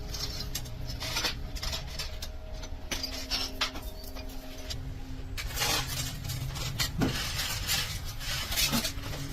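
Metal parts and hand tools clinking and knocking irregularly, with a steady low hum underneath.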